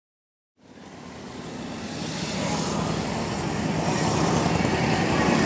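Harley-Davidson V-twin motorcycles riding past in a parade, engines running; the sound fades in from silence about half a second in and grows steadily louder.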